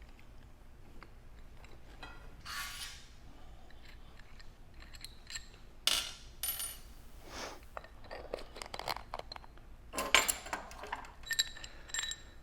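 Small metal parts clinking and scraping as the lock nut, washer and plates come off a gas regulator's diaphragm stem and are set down. A scrape about two seconds in, then scattered sharp clinks that ring briefly, busiest near the end.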